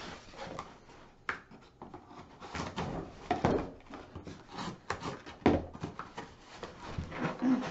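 Cardboard boxes and packaging for computer parts being handled and opened: irregular rustling and knocks, with one sharp knock about five and a half seconds in.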